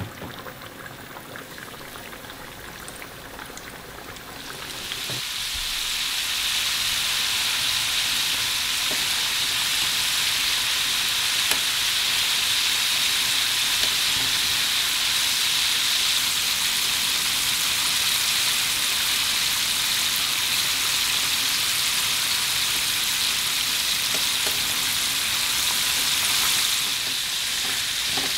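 Battered chicken pieces deep-frying in hot oil in an enamel pot. The oil bubbles more quietly at first, then about five seconds in it breaks into a loud, steady sizzle that eases slightly near the end.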